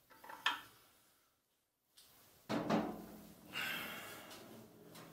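Faint metal handling inside a Kohler K301's cast-iron crankcase as the camshaft is tilted and lifted out: a light click about half a second in, then two short spells of scraping and knocking around the middle.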